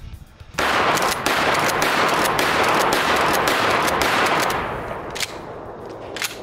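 A 12-gauge Mossberg 88 pump shotgun fires once about half a second in. The blast rolls on loud for about four seconds before fading. Two sharp clicks follow near the end.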